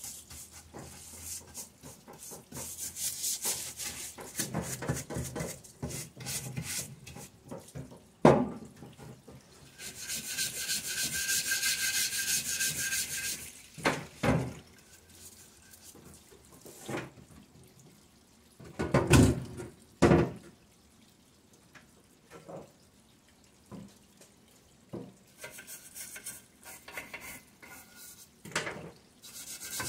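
Hand scrubbing and rubbing on a greasy engine part to clean off old, hardened black oil. It comes in spells, with a few sharp knocks, the loudest about eight seconds in, and a steady hiss lasting a few seconds near the middle.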